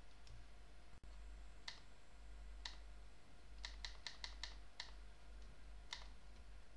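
Faint computer mouse clicks, about nine in all, with a quick run of five near the middle. The clicks step a spin-box arrow up one value at a time.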